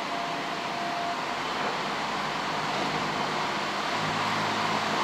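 Rail flaw detection car running slowly along the track with a steady mechanical rumble; its low engine hum comes in about four seconds in as the car draws close.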